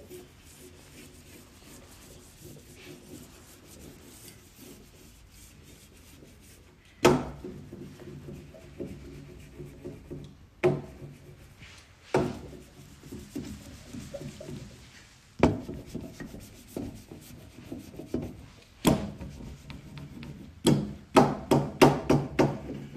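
Hand ink roller worked over a glass inking slab: a low rubbing and rolling sound broken by sharp knocks of tools against the glass, five spaced out, then a quick run of about six knocks near the end.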